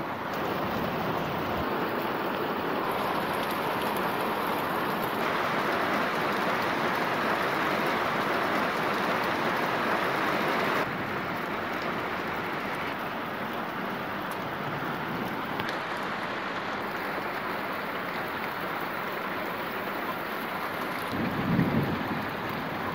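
Steady rain falling, with a short low rumble of thunder near the end as the loudest moment.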